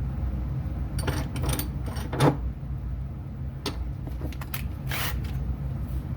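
Irregular small clicks and scrapes from copper wires being handled and worked by hand in a small wire-stripping tool, over a steady low hum.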